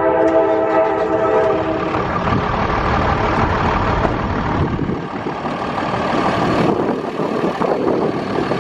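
Train horn sounding a chord of several steady notes that stops about two seconds in, followed by the steady noise of the train running past.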